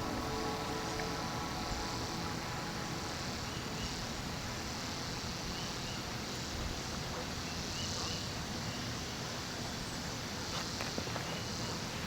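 Outdoor ambience by flowing water: a steady low rush with insects buzzing high, their buzz swelling and fading a few times, and a few faint short chirps. Background music fades out just after the start.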